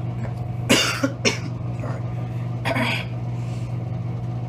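A person coughing: two sharp coughs about a second in, then a longer cough or throat-clear near the middle. A steady low hum runs underneath.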